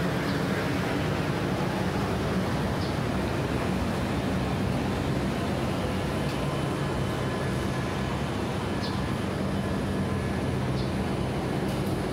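Steady city street noise: traffic running, with a constant low engine hum.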